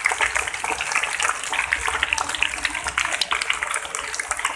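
Applause from a crowd of children: many hands clapping in a dense, fast patter that eases off a little near the end.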